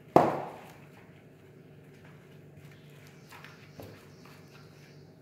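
A single sharp knock with a short ringing decay right at the start, then faint rustling and small clicks of a gloved hand rubbing spice paste into raw fish in a metal baking tray.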